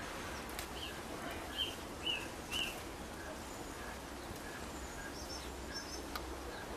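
Small birds chirping: a few short calls in the first three seconds and some higher, fainter notes later, over a steady hiss with a few faint clicks.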